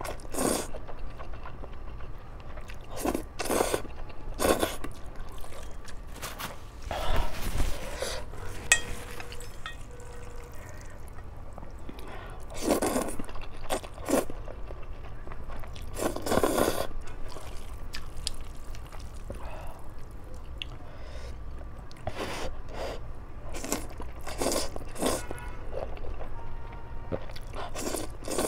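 A person slurping instant spicy noodles close to the microphone, a series of wet slurps every second or several, with chewing between them.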